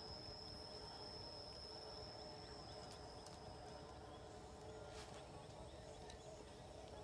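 Faint rural ambience: a steady, high-pitched insect drone, with a few faint clicks, likely twigs being handled, around three and five seconds in.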